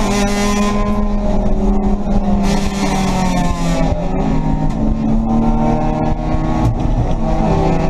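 Race car engine running hard under load, heard from inside the stripped cabin, its pitch rising and falling as the revs change.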